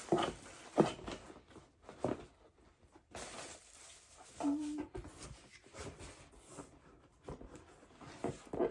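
Items and packaging being handled: scattered light knocks and rustles, with one brief steady low tone about halfway through.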